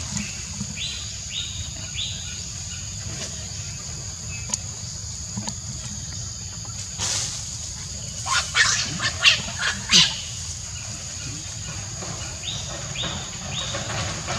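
Outdoor nature ambience: a steady high insect drone, with birds giving short runs of three chirps near the start and again near the end. About eight seconds in comes a cluster of loud, short, sharp sounds lasting a couple of seconds.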